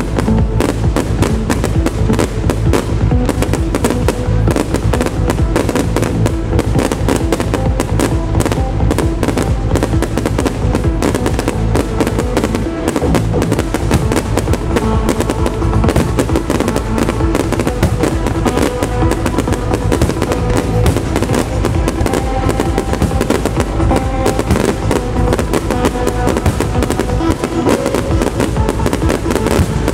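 Trance music from the show's loudspeakers, with a steady pounding bass, under a dense, continuous barrage of firework bangs and crackling as the pyrotechnics go off in sync with it.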